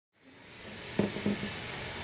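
Steady recording hiss fading in at the start, with two short, soft sounds about a second in, before the acoustic guitar begins.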